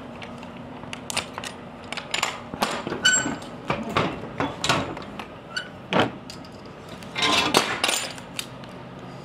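Irregular knocks, rattles and metallic clinks from things being handled, with a short ringing chime about three seconds in, over a steady low hum.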